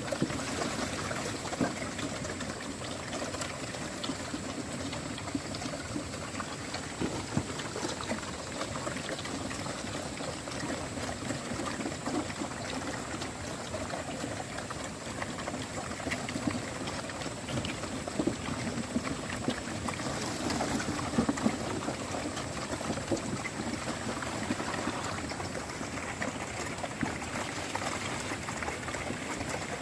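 Water running and pouring steadily, with a steady splashing hiss.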